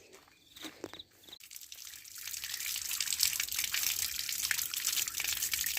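Water running, a fine splashing hiss that swells over about a second and a half and then runs steadily, after a few light clicks at the start.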